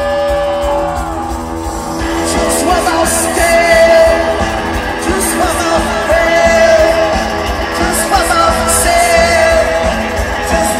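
Punk rock band playing live, loud, with guitars and drums and a singer's long held, shouted notes over them; the cymbals come in fuller about two seconds in.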